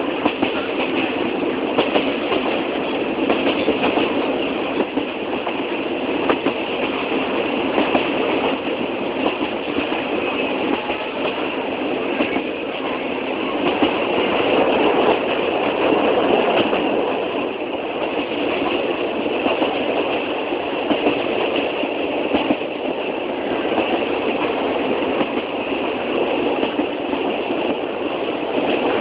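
Old train running on the rails: a steady rumble and rattle with many small clicks, swelling a little around the middle.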